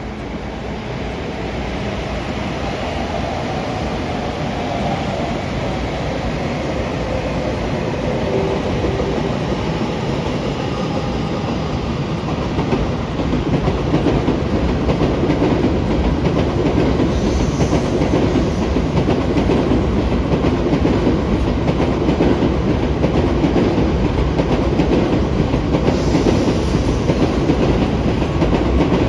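A train running on the rails, growing steadily louder over about the first half as it draws near, then holding a steady, loud rumble.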